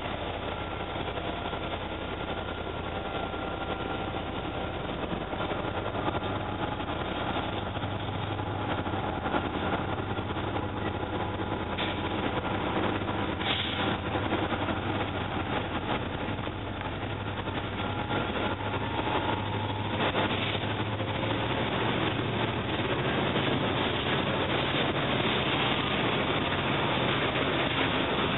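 CSX freight train rolling past: its trailing diesel locomotives at first, then a long string of freight cars, tank cars and hoppers among them, running steadily over the rails.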